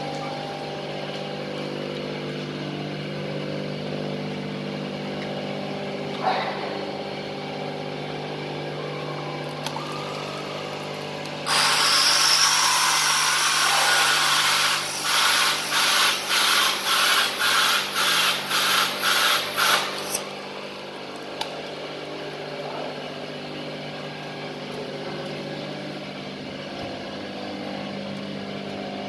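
Electric motor of a portable glass drilling machine running with a steady hum. A third of the way in, its diamond core bit grinds into wet glass for about eight seconds: a loud hiss that pulses about twice a second in its second half, then stops.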